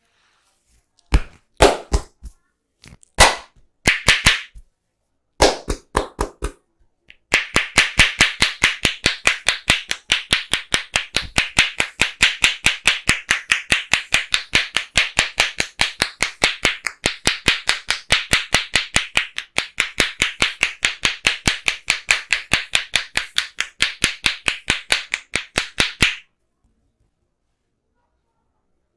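Hand-percussion head massage: palms clapping and slapping on the head. A few scattered strikes come first, then from about seven seconds in a long, fast, even run of sharp claps, several a second, which stops suddenly near the end.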